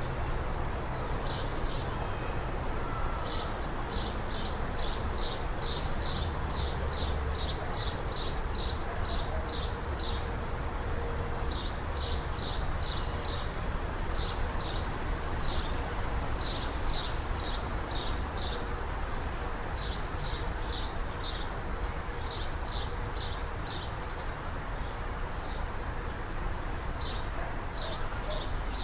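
A bird chirping in repeated runs of short, high notes, about three or four a second, with brief pauses between runs, over a steady low background rumble.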